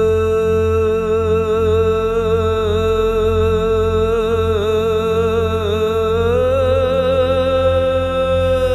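A singer holding one long, slightly wavering note of a naat, a devotional Islamic song, stepping up a little in pitch about six seconds in, over a low pulsing hum.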